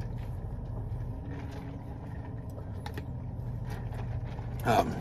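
Steady low drone of a car idling, heard from inside the cabin, with a few faint small clicks.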